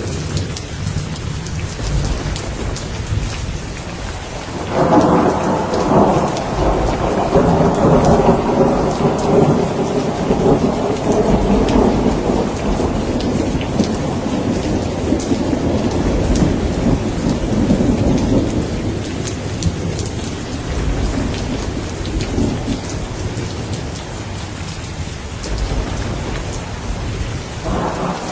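Rain falling steadily with rolling thunder: a long peal breaks suddenly about five seconds in, rumbles for more than ten seconds and slowly fades, and another peal begins near the end.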